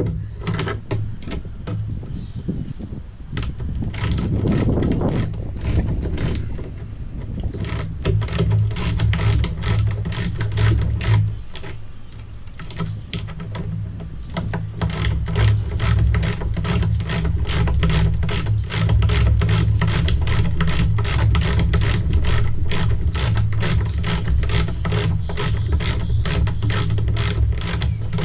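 Ratchet wrench clicking in quick, steady strokes as it tightens the nuts holding an outrigger base to a boat's T-top, with a low steady rumble underneath.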